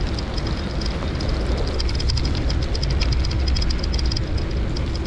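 Steady wind rumble on the microphone while moving along a wet path, with rapid, uneven light ticking over it.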